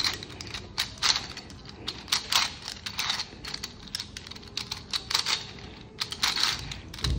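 TimeMachine cube, a plastic 2x2 twisty puzzle with clock dials, clacking as its layers are turned through a long algorithm: irregular plastic clicks, about two or three a second.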